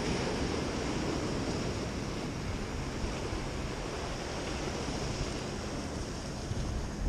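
Ocean surf washing steadily against rocks, with wind rumbling on the microphone.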